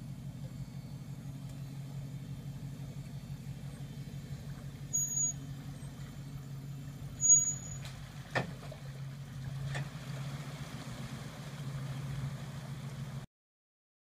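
Nissan Titan pickup's V8 engine running at a low, steady pitch as the truck creeps down the bank into a shallow river. A few brief sharp sounds cut in around five, seven and eight seconds in, the one at seven the loudest, and the sound stops abruptly about a second before the end.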